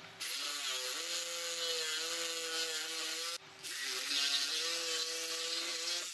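Electric jigsaw running and cutting through a wooden board, a steady motor whine over the rasp of the blade. It stops briefly just past halfway, then starts cutting again.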